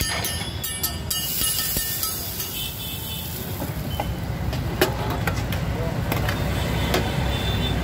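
Busy street ambience: a steady low rumble of traffic with background voices, and a few sharp clicks.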